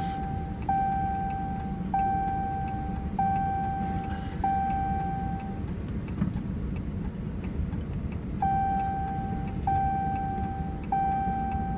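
Vehicle seatbelt reminder chime sounding long, evenly spaced beeps, a run of five, a pause of a few seconds, then three more, over steady engine and road rumble in the cab: the driver's seatbelt is unbuckled.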